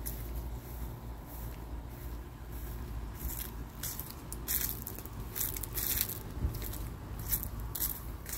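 Footsteps crunching over dry grass and fallen leaves at a walking pace, about two steps a second from about three seconds in, over a steady low rumble.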